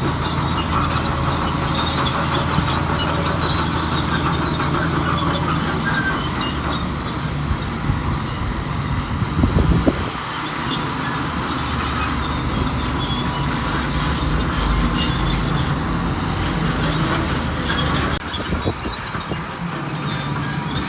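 Zoomlion bulldozer's diesel engine running steadily, with a high metallic squeal and clatter from its working tracks and a brief louder rush about ten seconds in.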